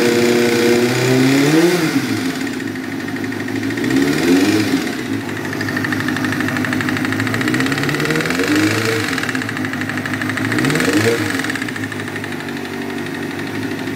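1998 Kawasaki ZX-6R's inline-four engine idling and blipped up four times, each rev rising and falling back quickly, with a rod knock from a spun connecting-rod bearing.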